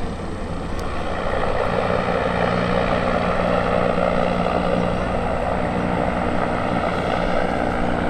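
Goodyear airship Wingfoot Three's propeller engines running steadily in a low, even drone with a constant hum, getting slightly louder about a second in.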